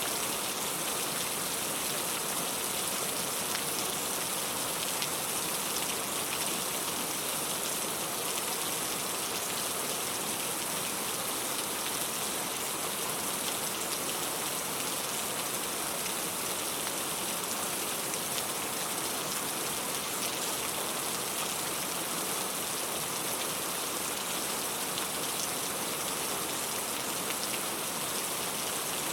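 Steady rain falling, a dense even hiss of drops on a surface with no music.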